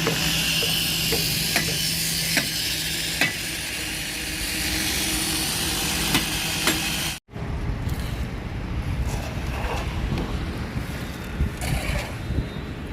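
Concrete pump and site machinery running steadily during a slab pour, with a hissing wash of noise and a few sharp clicks. About seven seconds in the sound cuts off abruptly and comes back as a lower, rougher rumble.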